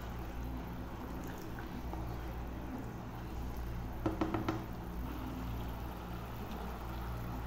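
Egg curry gravy simmering in a pan over a steady low hum, with a ladle knocking against the pan four or five times just after four seconds in.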